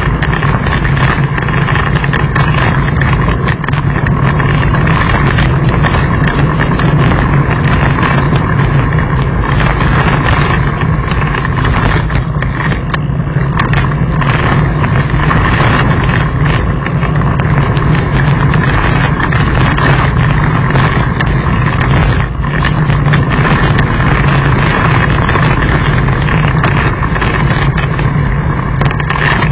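Dirt bike engine running at a steady pace while riding over a loose gravel track, mixed with wind and tyre noise on the stones.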